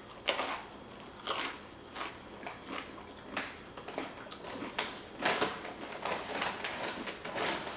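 A tortilla chip topped with hot crab dip being chewed, with crisp crunches at an uneven pace of about one a second.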